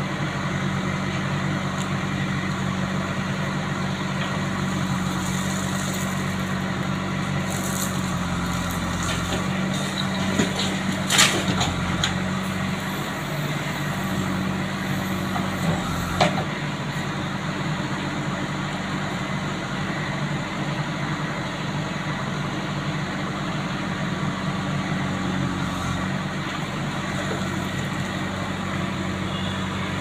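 JCB 3DX backhoe loader's diesel engine running steadily while its backhoe arm digs, the engine note dipping briefly about eight seconds in. A couple of sharp clanks, about eleven and sixteen seconds in.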